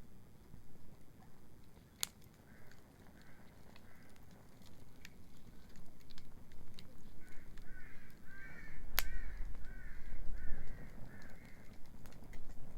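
Beach bonfire crackling with scattered sharp pops, while a bird calls in runs of short repeated notes, briefly a few seconds in and more loudly in the second half.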